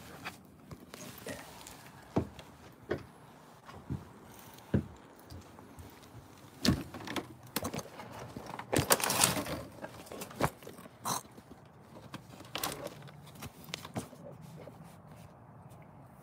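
Handling noise from a phone being moved and set up: clothing rustling against the microphone, with irregular knocks and clicks and a longer rustle about nine seconds in.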